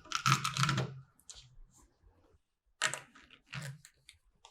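Clicks and clatter of metal door-lock parts being handled and fitted, in two bursts: one in the first second and another around three seconds in.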